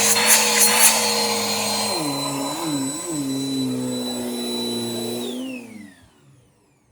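Bissell PowerForce Helix 2191U bagless upright vacuum running with a steady whine and a few crackles near the start. Its pitch drops and wavers about two seconds in. About five seconds in the motor winds down with a falling whine and stops.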